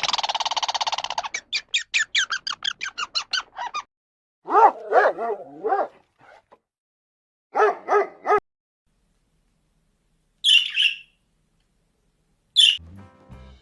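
A string of separate animal calls: a loud rapid pulsed call lasting about three and a half seconds, then two short bouts of bark-like calls, then two brief high chirps near the end.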